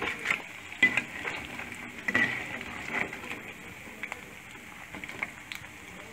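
Battered cauliflower pakoras sizzling in hot deep-frying oil, with a metal slotted spoon clicking and scraping against the pan at irregular moments as the fried pieces are lifted out.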